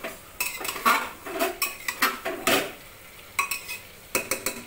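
Long metal spoon stirring thick cauliflower curry in an aluminium pressure cooker, scraping and clinking against the pot in irregular strokes, then a few separate sharp knocks of metal on metal.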